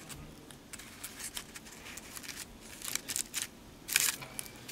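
Paper flowers and cardstock layers on a handmade card rustling and crinkling as a hand presses them down onto fresh glue: a string of short, dry crackles, loudest near the end.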